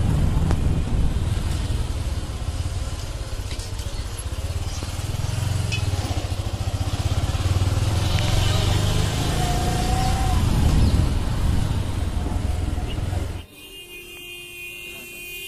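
Wind buffeting a phone microphone outdoors: a loud, uneven low rumble. About thirteen seconds in it cuts off abruptly, leaving a much quieter steady hum.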